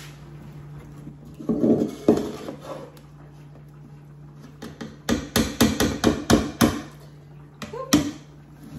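Stainless wire-mesh strainer knocked against the rim of a metal cooking pot: some lighter clatter, then a quick run of about eight sharp clanks a few seconds later and one more near the end.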